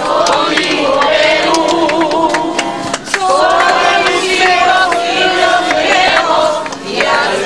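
A crowd singing together, many voices holding long sung phrases, with brief breaks between lines and scattered sharp clicks.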